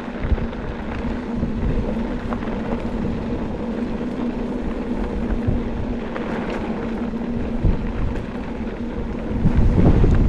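Mountain bike rolling along a dirt singletrack: the knobby tyres hum with a steady low tone over the rattle and small knocks of the trail, with wind on the microphone. It gets louder near the end.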